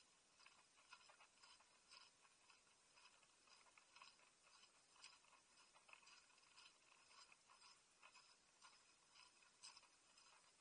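Near silence, muffled by a sealed waterproof camera case: faint, irregular scratching and light ticks, several a second.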